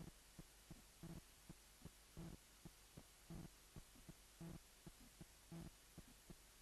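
Heartbeat sounds: a steady run of soft low thumps about once a second, with fainter clicks between them, over a low hum.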